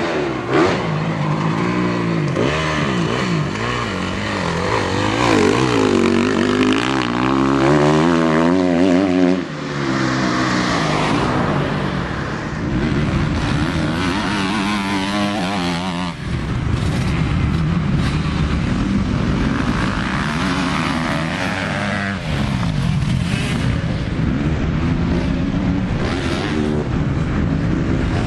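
Motocross bike engines revving hard, the pitch rising and falling again and again as the riders open and close the throttle, with the sound changing abruptly twice.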